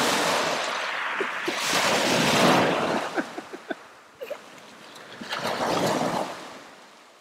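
Small surf waves breaking and washing up the shore, rising and falling in three swells, with light splashes of a child wading through the shallows.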